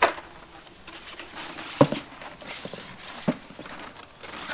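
Rolled plastic sheets being handled and stood in a cardboard box: crinkling, with three knocks. The sharpest knock comes a little under two seconds in.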